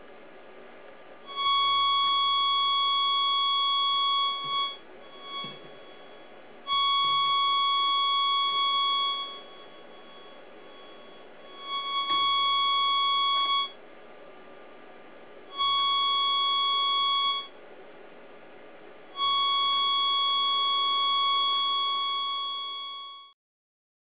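Microwave receiver's loudspeaker sounding a steady tone of about 1 kHz, switching on and off five times for two to four seconds each, with a low hiss between. The tone sounds whenever the microwaves get through the copper-strip polarizer boards to the receiver, and drops to hiss when they are blocked.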